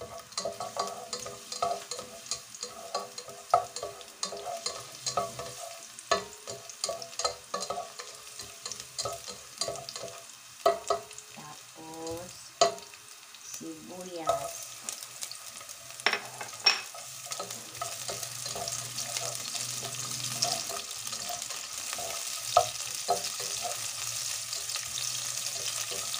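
Garlic sizzling in hot oil in a pot, stirred with a plastic slotted spatula that scrapes and taps against the pot in short strokes. Ginger and sliced onion are tipped in from a plate partway through, with a few sharper knocks, and the sizzle grows louder in the second half.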